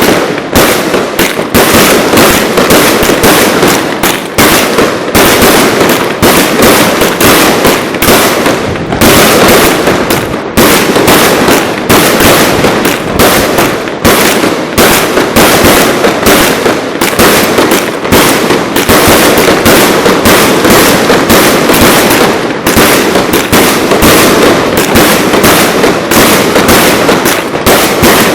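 Ground fireworks going off in a dense, continuous barrage of loud firecracker bangs, many per second, with barely a pause.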